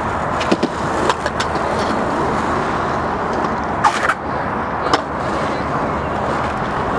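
Skateboard wheels rolling over rough concrete, a steady rumble, with a few sharp clacks of the board about four and five seconds in.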